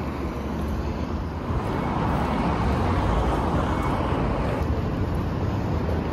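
Road traffic noise on a city street, a steady rush that grows louder toward the middle as vehicles pass and eases slightly near the end.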